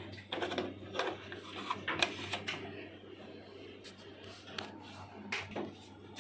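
Irregular clicks and light knocks of hard plastic as a projector's casing and parts are handled, louder in the first couple of seconds, over a faint steady low hum.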